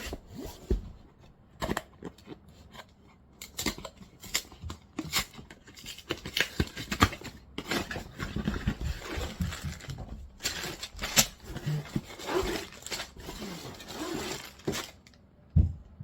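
Cardboard box of a brick building set being opened by hand: irregular tearing and cutting at the seal, crinkling packaging, and scattered clicks and knocks as the contents are handled.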